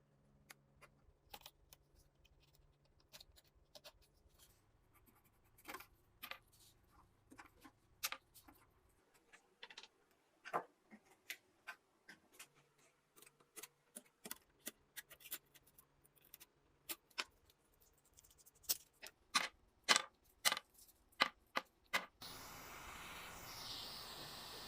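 Irregular sharp taps and clicks of small hand tools working on an old harmonium, growing closer together and louder near the end. A steady hiss starts suddenly in the last few seconds.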